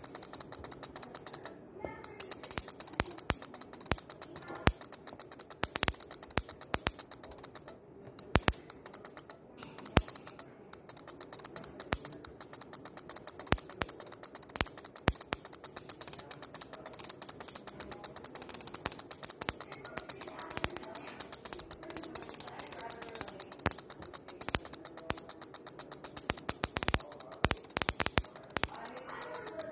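Relay chattering as a fast train of sharp clicks, its contacts repeatedly breaking the current through a car ignition coil to make over 20,000 volts. The clicking stops for a moment four times in the first eleven seconds.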